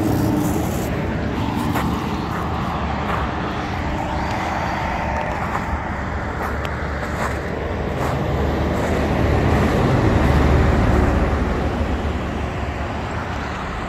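Steady road traffic noise, a low rumble that grows louder about ten seconds in as a vehicle passes.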